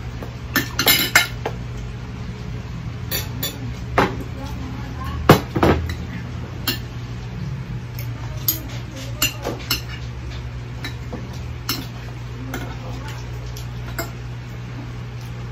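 Spoons and forks clinking and scraping on plates during a meal: scattered irregular clinks, with one sharper knock about five seconds in. A steady low hum runs underneath.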